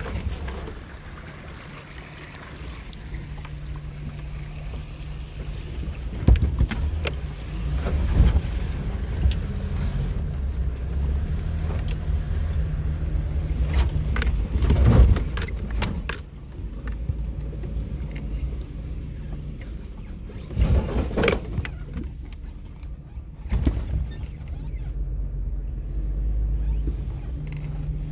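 Vehicle driving slowly over a rough, rutted dirt road, heard from inside the cab: a steady low engine hum with several loud knocks and rattles as the body jolts over bumps and ruts.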